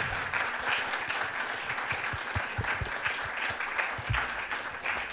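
Audience applauding: a steady clatter of many hands clapping.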